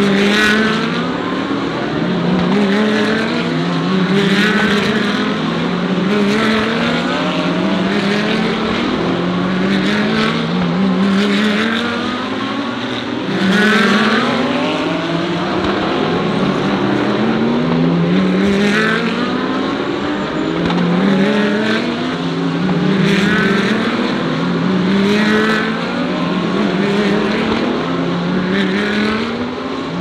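GT3 race cars accelerating hard one after another, engines climbing in pitch through each gear and dropping back at the upshifts, the sound swelling and fading as each car goes by.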